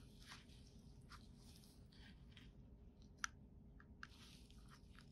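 Near silence with faint, scattered soft clicks and crackles from a scalpel cutting through a sheep brain and gloved fingers handling the tissue; one sharper click about three seconds in.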